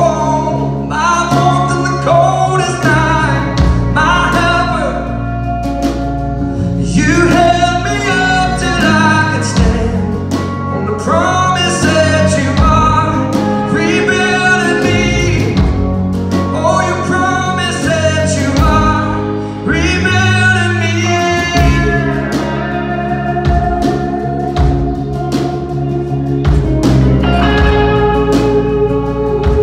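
Live band playing a song: a man singing over acoustic guitar, electric guitar, bass guitar and drum kit.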